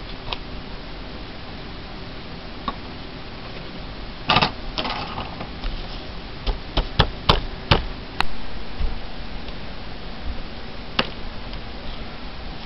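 Hands handling craft materials on a table: a cluster of knocks about four seconds in, then a quick run of sharp taps and clicks a little later and one more near the end, over a steady low hum.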